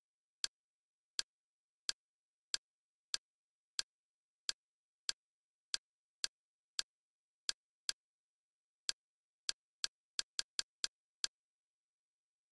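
Kodi media-centre interface navigation clicks. There is one short, sharp click for each step down a menu list, about one and a half a second, then a quicker run of several clicks near the end.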